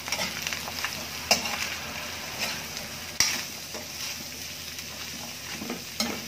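A metal spatula stirring and turning sliced squash and ground beef in an aluminum wok, scraping and clacking against the pan a few times, with the food sizzling underneath.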